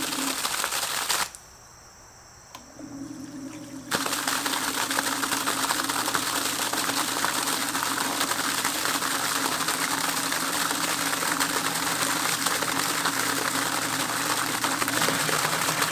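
Electric sump pump running, its motor humming under the rush and splash of water being pumped out. It cuts off about a second in. The motor hum comes back alone about a second and a half later, and the water rush starts again near four seconds in and runs steadily.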